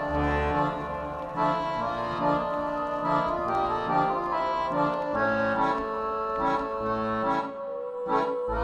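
Instrumental background music: sustained chords over a moving bass line, settling onto a held note near the end.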